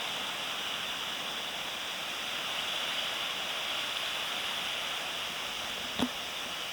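Steady rushing hiss of water, with a single sharp tick about six seconds in.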